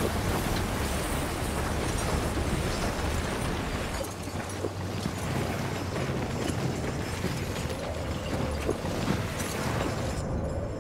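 Heavy iron chains being hauled under strain, grinding and clanking as they drag a huge weight over ice, with a rumble beneath and a low steady drone. Near the end the grinding hiss falls away.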